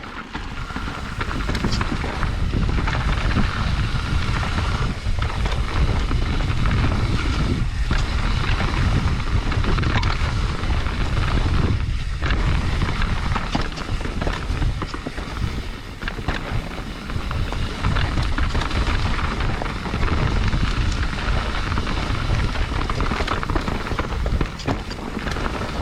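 Wind buffeting the microphone and a mountain bike rolling fast over a rough dirt trail, with frequent knocks and rattles from the bike.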